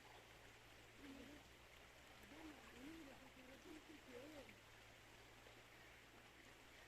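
Faint steady rush of flowing river water. From about one to four and a half seconds in, a low wavering sound rises and falls in pitch over it.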